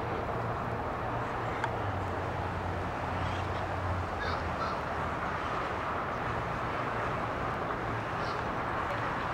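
Steady open-air background noise with a low hum, and a few faint, short, high calls in the middle and again near the end.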